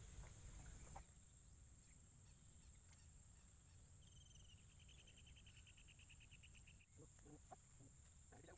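Near silence: faint outdoor ambience with a steady high whine, and about four seconds in a small animal's rapid, evenly pulsed trill lasting nearly three seconds. A few soft rustles follow near the end.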